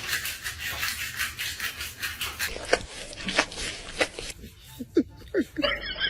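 Rhythmic rubbing or scratching strokes, about four a second, then several short squeaks; music comes in near the end.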